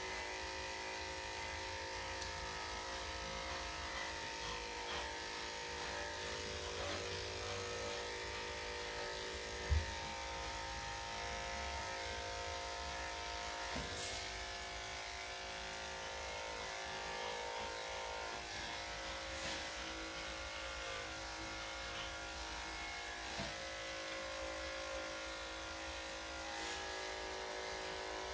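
Electric dog-grooming clippers with a #5 blade running steadily, a motor hum as they cut through a dog's coat. A few brief clicks and one short low thump about ten seconds in.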